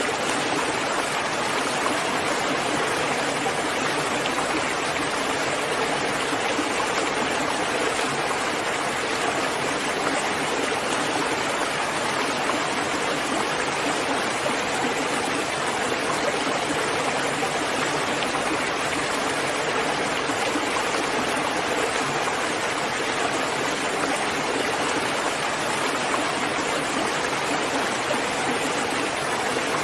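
Steady rain falling, an even unbroken hiss with no separate drops, thunder or pauses standing out.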